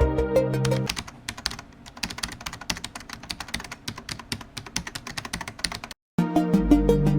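Electronic background music that thins after about a second to a rapid run of dry clicking percussion for several seconds, then cuts out briefly and comes back in full near the end.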